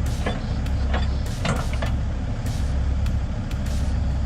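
Excavator diesel engine running steadily, with a scatter of sharp metal clanks and knocks as the heavy steel track is worked into place.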